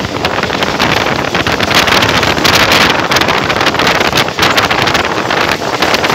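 Loud wind buffeting the microphone at the open door of a moving passenger coach, over the steady running noise of the train on the track.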